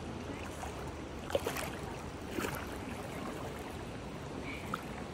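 Shallow rocky creek running: a steady rush of flowing water, with two brief sharper sounds about one and a half and two and a half seconds in.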